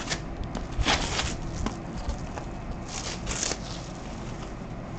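Handling noise from a spool of PLA filament and its plastic wrapping: crackling rustles about a second in and again about three seconds in, with a few small clicks.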